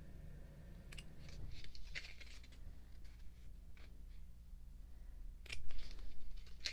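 Glossy pages of a photobook being turned and handled: a few short papery swishes and rustles, the loudest about five and a half seconds in.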